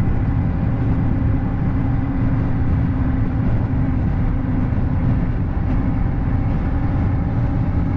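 A vehicle driving at a steady speed: a steady low rumble of engine and road noise with a constant droning hum.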